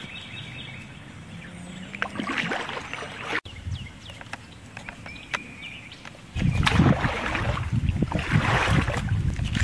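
Kayak gliding on a river with small paddle splashes and drips; about six seconds in, a loud rustling and rumbling starts suddenly as overhanging leaves and branches brush against the camera.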